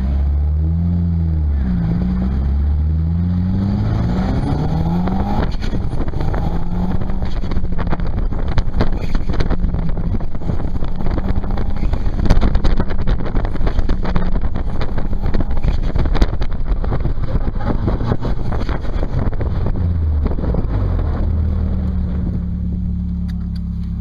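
Car engine revving hard under acceleration, its pitch climbing and dropping at the gear changes. This gives way to a long stretch of loud rushing wind and road noise with many sharp knocks and crackles, heard from the open cabin of a convertible with the top down. Near the end the engine settles to a steady low running tone as the car slows.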